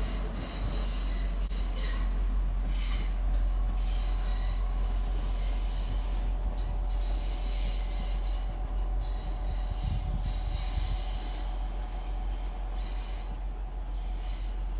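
Transport for Wales Class 175 three-car diesel multiple unit pulling away on curved track. Its diesel engines run under a steady low rumble, and its wheels squeal in high, thin tones that come and go.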